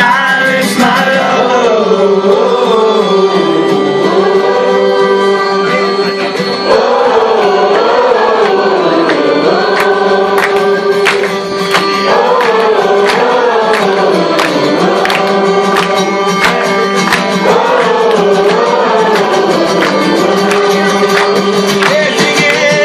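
Live unplugged band performance: voices singing a wavering melody over steady sustained chords, with frequent sharp percussive hits.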